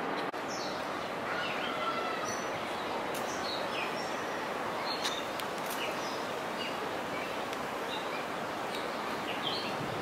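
Outdoor park ambience: a steady hum of distant city noise with short bird chirps and calls scattered throughout.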